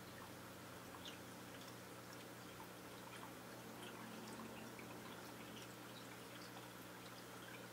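Faint aquarium water trickling, with scattered small drips and plinks over a steady low hum.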